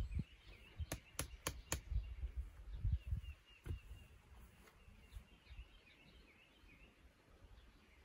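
Birds chirping, with four quick sharp clicks about a second in and one more a few seconds later, over a low rumble that dies away about halfway through.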